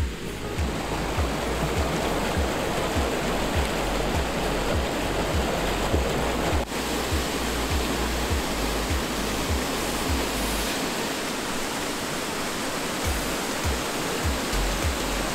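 Water rushing over rocks at a small waterfall and creek cascade, a steady hiss, under background music with a low beat of about two pulses a second that drops out briefly after the middle.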